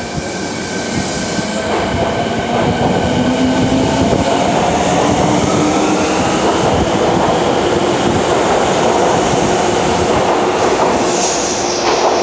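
Fukuoka City Subway 1000 series train pulling out of an underground station: steady wheel-on-rail rumble with a motor whine that rises in pitch as it accelerates, and a brief high squeal near the end.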